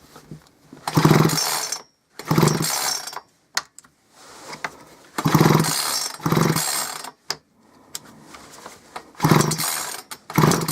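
Gardenline two-stroke chainsaw's recoil starter cord pulled six times, mostly in pairs, spinning the engine over without it firing. The cranking is a spark test: the owner suspects bad plug gapping or a failing ignition coil.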